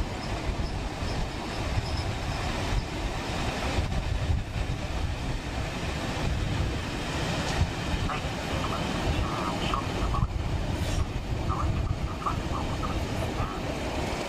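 Train coaches rolling along the track, heard from on board with a steady low rumble and wind on the microphone. In the second half come several short, high wheel squeals.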